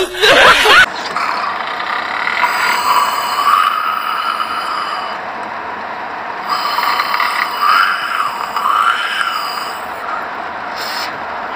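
Snoring in a sleeping person: a noisy breath with a faint whistle that rises and falls, swelling in waves every few seconds. A short laugh is heard at the very start.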